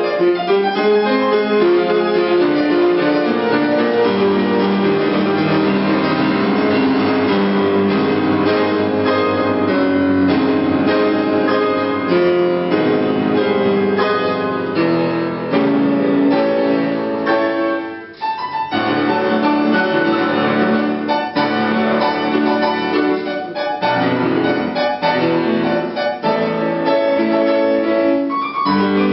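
Grand piano played solo, a continuous flowing piece with one brief break a little past the middle.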